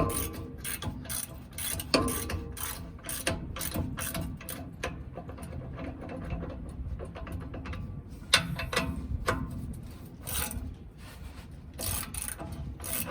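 Hand ratchet wrench clicking in irregular runs as it is worked back and forth on a large nut, with a few sharper metal knocks along the way.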